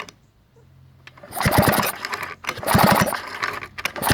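Vintage Pioneer 620 103cc chainsaw being cranked by its recoil starter cord, three quick pulls with a fast ticking whir on each, about a second apart. The engine is turning over with its spark plug out, as a test for spark.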